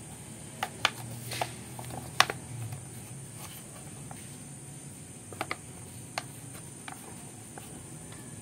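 Scattered light clicks and knocks of hard plastic parts as an orbital sander's housing and base are handled and pressed together by hand, the sharpest knock about two seconds in.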